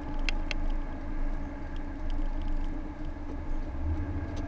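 Road and engine noise inside a moving car at highway speed: a steady low rumble with a faint hum, and two light clicks near the start.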